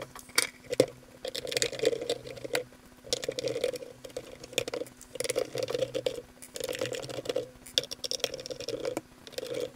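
A hand screwdriver backing out the front screws of a plastic-bodied LED PAR light: short spells of scraping and squeaking, about one a second, with small clicks in between.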